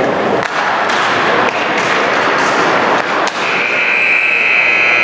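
Ice hockey rink din with several sharp clacks of sticks and puck. Near the end a referee's whistle is blown as one steady shrill blast of about a second and a half.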